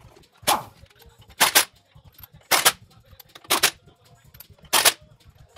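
Earthquake impact wrench fired in five short bursts about a second apart, running lug nuts onto a wheel.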